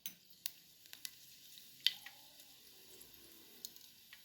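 Mustard seeds spluttering in hot oil: a faint steady sizzle broken by irregular sharp pops, the loudest a little under two seconds in.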